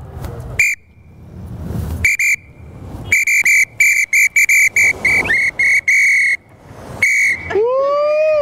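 Traffic officer's whistle blown in short blasts: a few single blasts, then a quick rhythmic run of about a dozen, ending on one longer blast. Low traffic rumble sits under the first couple of seconds, and a voice cries out just before the end.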